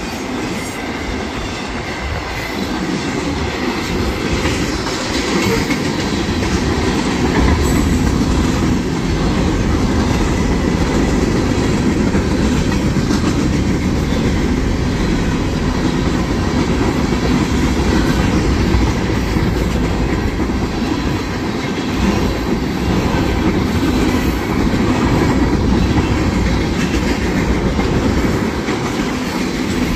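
Mixed freight cars of a manifest train (autoracks, a covered hopper, tank cars) rolling steadily past through a grade crossing: a continuous rumble with wheels clattering over the rails. It grows a little louder over the first few seconds, then holds steady.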